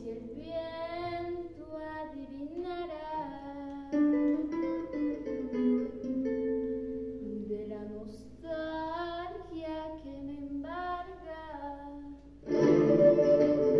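A girl singing a solo song over instrumental accompaniment, her voice gliding between held notes. About twelve seconds in, the accompaniment suddenly swells much louder.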